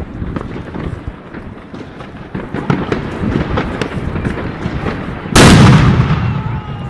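Category F4 firecracker exploding with a single loud bang about five seconds in, its echo dying away over about a second.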